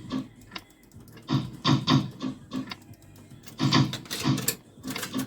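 Amusement-arcade coin machine running, with short spells of mechanical clatter and rattling about a second in and again past the middle.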